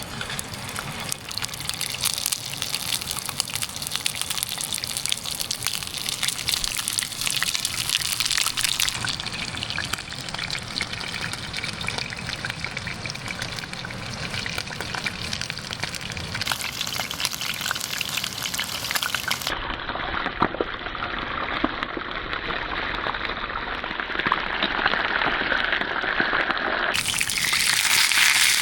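Trout frying in hot oil in a pan over a campfire, a steady sizzle full of fine crackles and pops.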